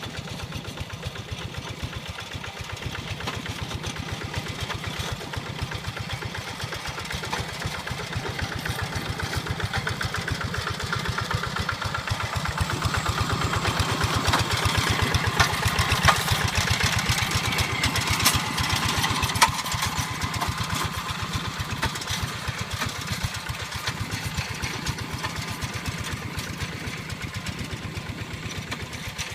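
Hand tractor's single-cylinder diesel engine running steadily as it plows a rice paddy, with an even, rapid firing beat that grows louder towards the middle and fades again, with a couple of sharp clicks near the loudest point.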